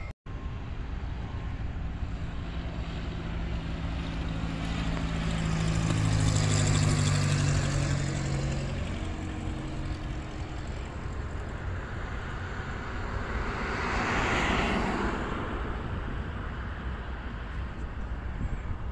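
Two road vehicles driving past close by over a steady outdoor rumble: the first about seven seconds in, with a deep engine hum that swells and fades, the second about fourteen seconds in, mostly a rush of tyre and road noise.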